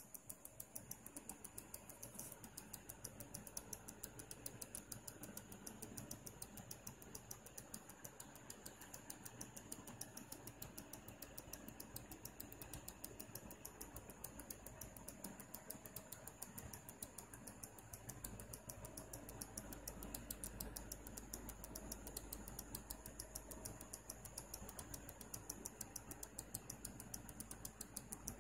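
Switched-mode power supply ticking rapidly and regularly, several clicks a second, over a faint steady high whine: an unexplained fault noise from the supply.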